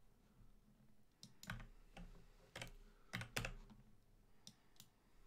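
Faint computer keyboard keystrokes, about eight scattered taps as numbers are typed in.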